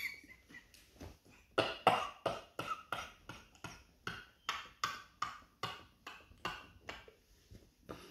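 A man laughing without words: a quick run of short laugh bursts, about three a second, that dies away near the end.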